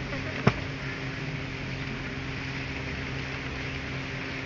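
A garden hoe strikes the soil once, a sharp thud about half a second in, over a steady low hum.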